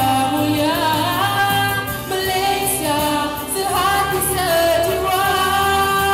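A young male singer singing a Malay-language patriotic song into a microphone over a backing track, with long held notes and some vibrato.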